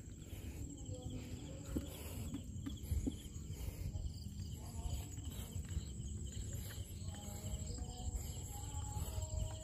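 Insects trilling steadily, a high pulsing buzz, over a constant low rumble.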